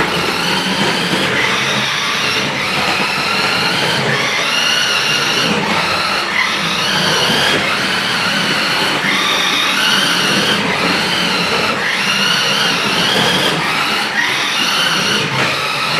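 Battery-powered 1:10 scale RC Lamborghini Murcielago toy car driving across a hardwood floor: its electric motor whines, rising and falling in pitch as the throttle is worked, and drops off briefly every second or two.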